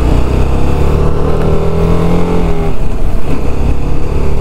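TVS Apache RR310's single-cylinder engine running under way, its note shifting about two and a half seconds in.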